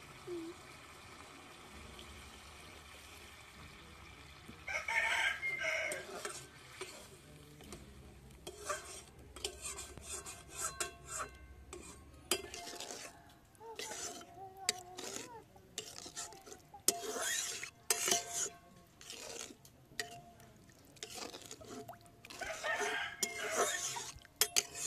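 A utensil stirring and scraping in a cooking pot of fish curry, with scattered clinks and knocks against the pot.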